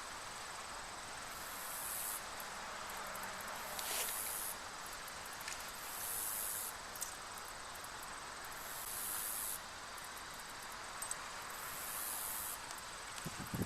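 Insects buzzing: a high, hiss-like buzz that comes in bursts of about a second, roughly every two to three seconds, over a faint steady high whine. A light click about four seconds in and a few low knocks near the end.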